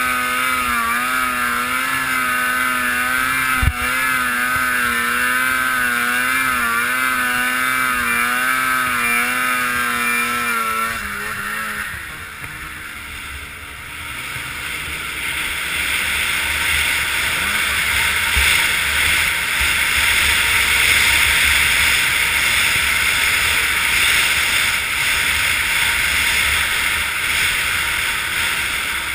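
Polaris 800 Dragon snowmobile's two-stroke twin running at high revs on a steep climb, its pitch wavering as the throttle is worked, with a single knock a few seconds in. About eleven seconds in the revs drop off, and after a short lull a loud steady rush of wind and snow noise takes over as the sled rides on.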